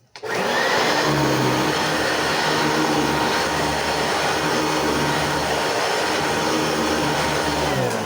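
Singer SST-315 6.2 amp upright vacuum cleaner switched on, its motor starting abruptly and running loud and steady. Near the end it is switched off and the motor winds down with a falling pitch.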